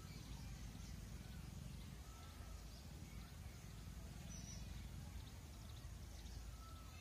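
Faint outdoor ambience: scattered short chirps and whistles from small birds over a steady low rumble. The peacock gives no call.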